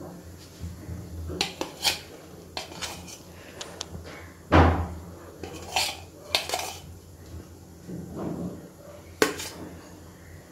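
Metal spoon clinking and tapping against bread slices on a flat pan as butter is dropped on with it, a series of irregular clicks and knocks, the loudest about four and a half seconds in.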